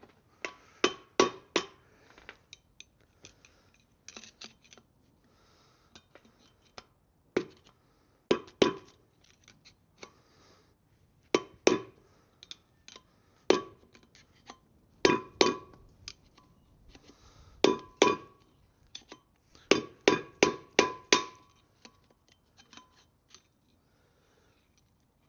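Hammer blows on a screwdriver driving an old wheel bearing race out of a Land Rover Defender 90 hub from the inside: sharp metal-on-metal strikes, irregularly spaced and often in quick runs of three to five, each with a short ring.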